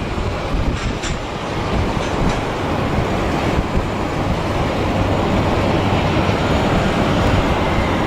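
A steady rumbling roar of heavy machinery noise with a low hum under it, swelling slightly toward the end.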